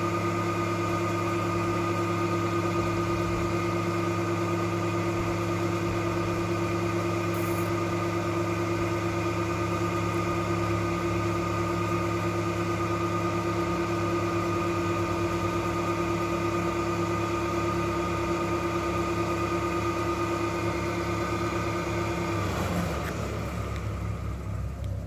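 Electric boat lift motor running with a steady whine. The whine stops a couple of seconds before the end, leaving a lower steady hum.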